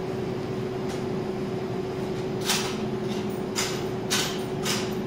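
Coffee-shop background: a steady hum of equipment, with four or five short scraping or rustling noises in the second half.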